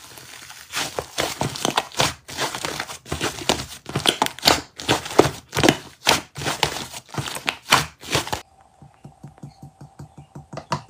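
Fluffy slime crackling and popping as hands knead and stretch it, a dense run of irregular crisp pops and tearing sounds. After about eight seconds it gives way to fainter soft clicks as a spoon works a thicker slime in a tub.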